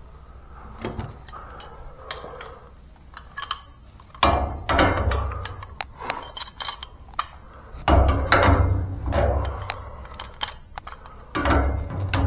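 Irregular metal clinks and knocks from handling tools and black-iron gas pipe fittings. Louder clattering and rustling comes about four, eight and eleven seconds in.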